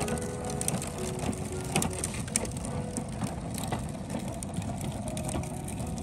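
Hard plastic wheels of a Little Tikes Cozy Coupe ride-on toy car rolling over a concrete sidewalk as it is pushed: a continuous rattling rumble with frequent small clicks.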